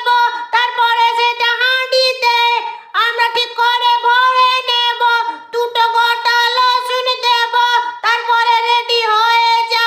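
A very high-pitched voice in a sing-song chant, holding an almost steady pitch, with short pauses about three seconds in and again a little past five seconds.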